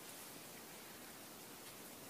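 Near silence: a faint, even hiss of background noise with no distinct sound.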